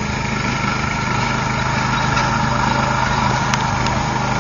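Riding lawn mower engine running steadily, growing slightly louder.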